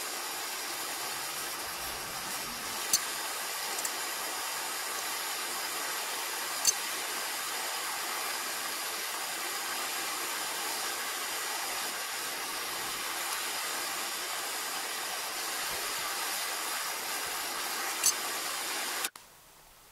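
MAP gas torch burning with a steady hiss, sped up, broken by three sharp clicks; the hiss cuts off abruptly near the end.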